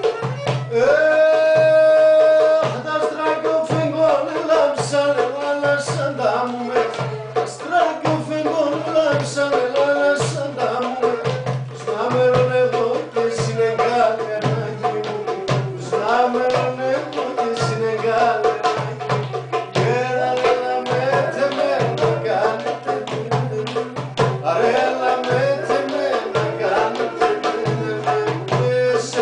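Greek folk music with a melody instrument, some singing and a steady drum beat.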